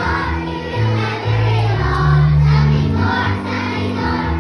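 A group of young children singing together over accompanying music, with a low bass line moving in held notes.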